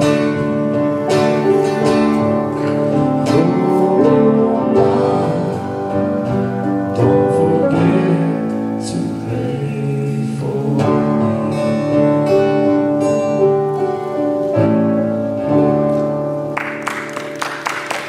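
Live church band playing a gospel song with singing and instruments. Applause breaks out near the end as the song closes.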